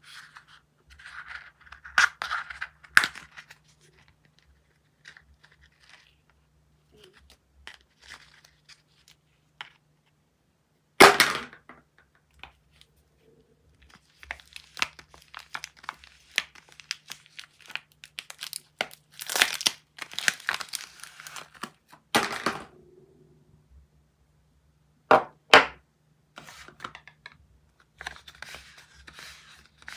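Soap packaging being unwrapped by hand: wrappers crinkling and tearing, broken by sharp snaps and clicks, the loudest about a third of the way in and again near the end.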